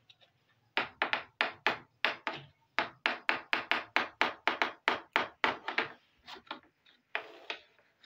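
Hard plastic toy pieces clicking and tapping: about twenty sharp taps in quick succession, roughly three a second, with a softer scraping sound near the end.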